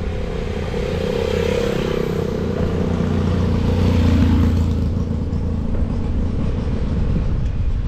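A motorcycle's engine approaching and passing, loudest about four seconds in, over a steady rumble of wind on the microphone from riding a bicycle.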